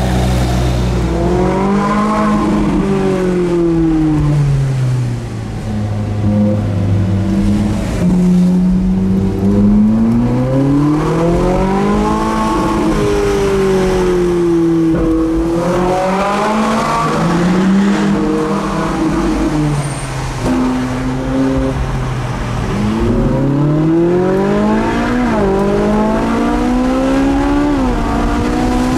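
Ferrari 458 Italia's 4.5-litre V8, heard from inside the cabin, revving up and falling back several times as the car accelerates and slows. Near the end comes a run of quick upshifts, each a rise in pitch cut short by a drop.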